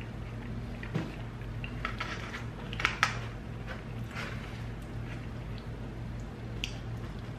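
Eating sounds: a wooden fork scraping and clicking against a styrofoam takeout container and through food, with the sharpest clicks about three seconds in, over a steady low hum.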